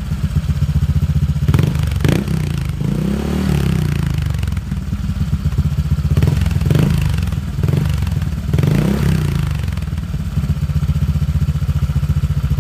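Honda PCX 150 scooter's single-cylinder four-stroke engine idling through a J. Costa aftermarket exhaust with its dB killer removed, blipped several times. Two longer revs rise and fall, about three seconds in and again near nine seconds, before it settles back to a steady idle.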